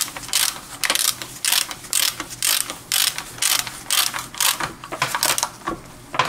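Hand ratchet wrench clicking as it is worked back and forth, tightening the reverse gear locking bolt in a manual gearbox case, about two strokes a second. The clicking stops shortly before the end.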